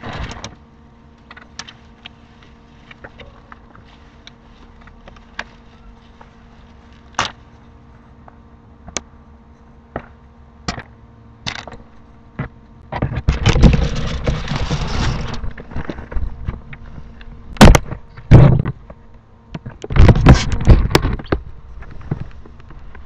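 A homemade sewer camera working along a sewer pipe: scattered clicks and knocks, with two longer spells of rough scraping rumble about thirteen and twenty seconds in and two sharp knocks between them, over a steady electrical hum.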